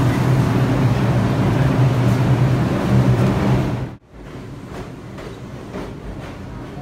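New York City subway train running: a loud rumble with a steady low hum that drops off abruptly about four seconds in to a quieter rumble with faint, evenly spaced clicks.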